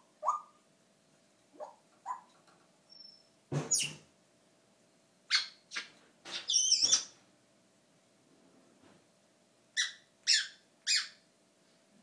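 African grey parrot making sound effects rather than talking: a few short rising 'bloop' calls early on, then louder, noisier squawk-like calls in the middle, and three quick sharper calls near the end.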